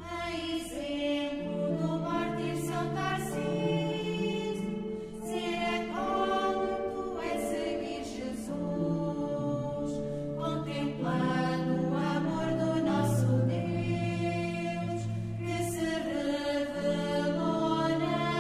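A choir singing slow music in held, sustained notes.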